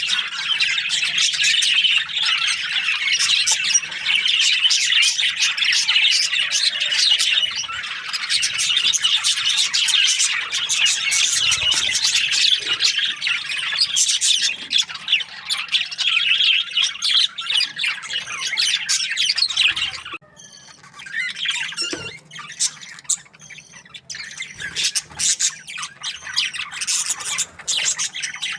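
A group of budgerigars chirping and squawking in a dense, continuous chatter. About two-thirds of the way through it suddenly thins to scattered calls, then builds again near the end.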